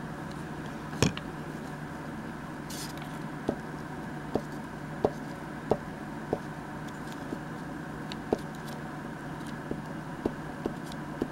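Paper being handled and a glue stick rubbed onto a paper collage on a cutting mat: a sharp click about a second in, then a dozen or so light taps and ticks spread through the rest, over a steady low hum.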